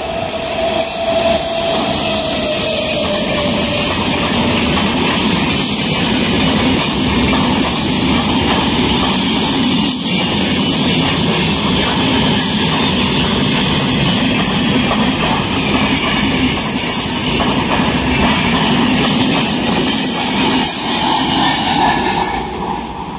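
Indian Railways express hauled by a WAP-7 electric locomotive running through a station at speed without stopping: a loud, steady rumble and rattle of wheels on rail as the locomotive and then the coaches pass close by. A tone that falls slightly in pitch is heard during the first couple of seconds.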